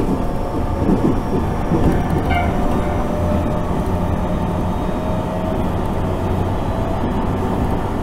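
Tobu Tojo Line electric train running at speed, heard from inside the passenger car: a steady low rumble of wheels on rail with a faint hum above it.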